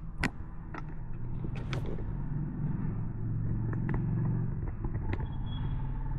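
A low steady rumble that swells about three to four seconds in, with a few sharp taps and clicks scattered through it.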